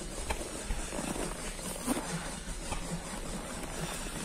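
Footsteps crunching on packed snow, a few scattered crunches over a steady low rumble.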